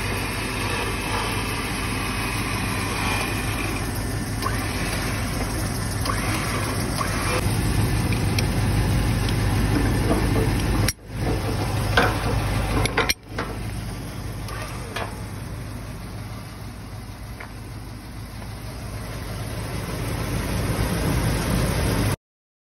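A motor vehicle engine running steadily, with two brief cuts in the sound midway, ending abruptly.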